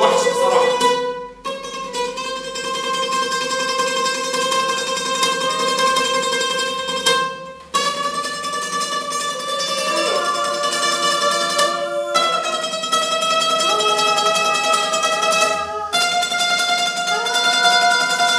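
Oud playing a slow rising scale: each note is held for several seconds, and there is a brief break before the next, higher note. These are reference notes that a singer matches to find the limits of their vocal range.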